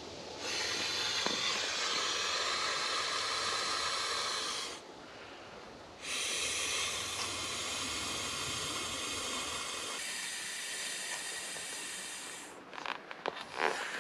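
Air rushing into a blue inflatable sleeping pad as it is blown up, a steady hiss in two long pushes with a short break between them. A few crinkles and rustles of the pad's material follow near the end.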